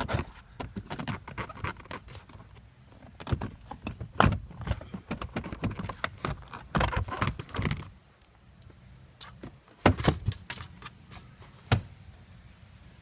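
Plastic interior trim of a Nissan GT-R's center console being unclipped and handled: an irregular string of clicks, knocks and rattles. The sharpest knocks come about four, ten and twelve seconds in.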